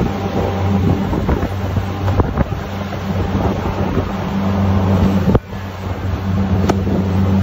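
Boat engine running at a steady low drone under way, with wind buffeting the microphone and water rushing along the hull and wake. The sound drops out briefly about five and a half seconds in, then the drone picks up again.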